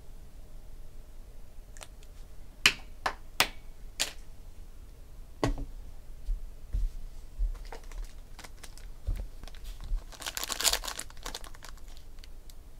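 A few sharp clicks and taps on a tabletop, then, about ten seconds in, a burst of crinkling from a foil trading-card pack wrapper as it is handled and opened.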